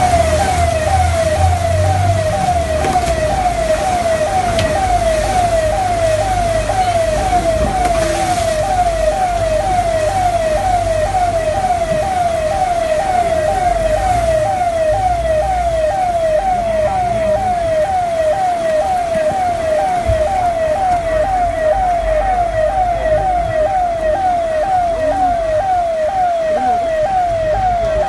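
A siren: a single tone sweeping up and dropping back nearly twice a second, steady and unchanging, over a low rumble that is strongest in the first two seconds.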